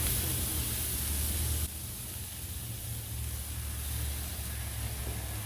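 Pork loin steaks sizzling on a barbecue grill, a steady hiss, with wind rumbling on the microphone underneath. The hiss drops suddenly in level about a second and a half in.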